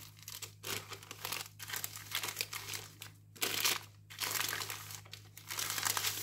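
Baking paper crinkling and rustling in a string of short rustles with brief pauses, as hands roll a warm sponge cake sheet up inside it. A steady low hum runs underneath.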